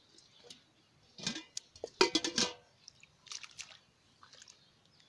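Short wet splashes and slaps in shallow muddy water during hand fishing, coming in several bursts, the loudest cluster about two seconds in.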